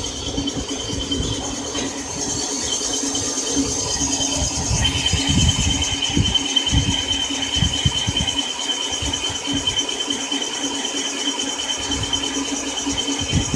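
Cylinder boring bar running in the bore of a four-cylinder engine block, with a steady machine hum and a high, steady squeal that grows louder about five seconds in.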